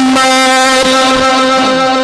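A male Quran reciter's voice, amplified through microphones, holding one long steady note of mujawwad (melodic, ornamented) recitation.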